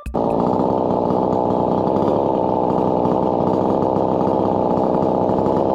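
Mahindra tractor's diesel engine running steadily, starting abruptly after a cut.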